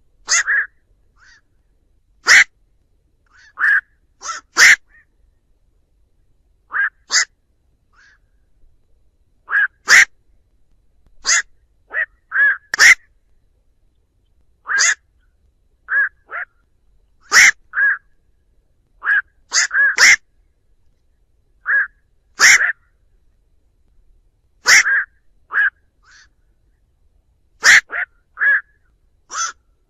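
Black-crowned night heron giving short, harsh 'quok' calls, its flock-gathering call. The calls come one at a time or in quick pairs, at uneven gaps of about a second, with quiet between them.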